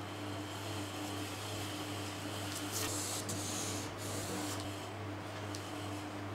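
Hands moving a steel ruler and marker over a large sheet of pattern paper: paper rustling and scraping for about two seconds in the middle, over a steady low hum.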